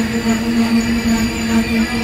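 Passenger train rolling slowly alongside the platform: a steady hum over the rumble of the wheels and carriages.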